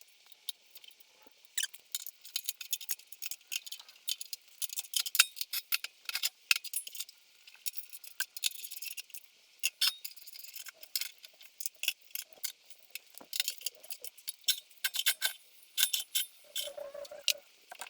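Rapid, irregular light metallic clicking and clinking, many small sharp ticks close together.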